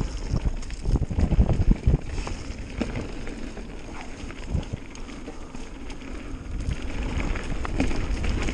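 Mountain bike ridden downhill over a dirt singletrack: wind buffeting the microphone over a low tyre rumble, with frequent knocks and rattles from the bike over bumps. It is busiest in the first two seconds and again near the end, calmer in the middle.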